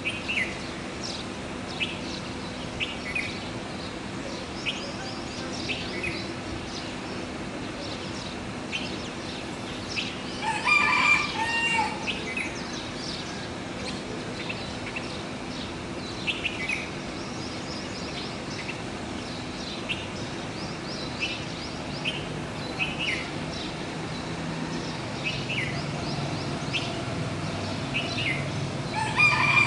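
Birds chirping in short, scattered high calls, with a rooster crowing twice, about eleven seconds in and again near the end, over a steady low hum.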